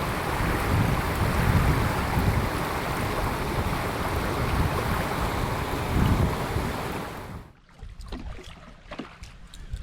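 Rushing wind and water noise of a boat under way, cutting off suddenly about 7.5 seconds in and leaving a quiet background with a few small clicks and knocks.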